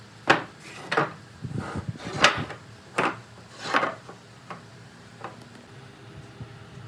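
Hard wooden pieces knocking and clattering as they are handled: about six sharp knocks over the first four seconds, then two faint taps.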